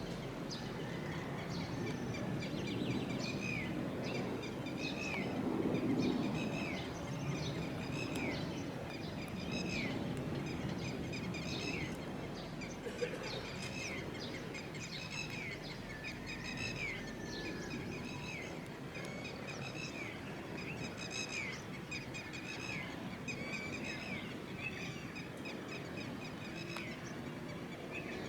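A bird calling over and over in short hooked notes, one or two a second, over a steady low background rumble of outdoor noise.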